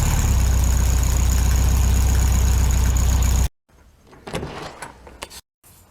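Engine running steadily and loud, cutting off abruptly about three and a half seconds in. It is followed by a few faint knocks and clicks.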